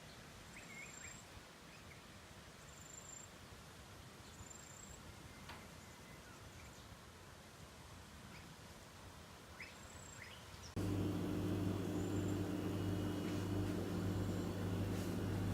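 Faint outdoor ambience with scattered short bird chirps and whistles. About eleven seconds in, it cuts abruptly to a louder steady low hum.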